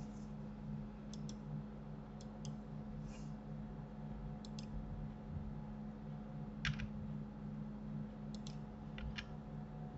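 Scattered clicks of a computer mouse, mostly in quick pairs, the sharpest about two-thirds of the way through, over a steady low electrical hum.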